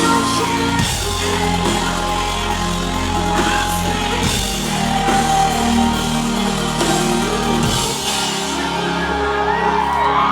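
Rock band playing live with drums, a steady deep bass and sustained chords. About eight seconds in the drums and high end drop away, leaving the low bass and held chords.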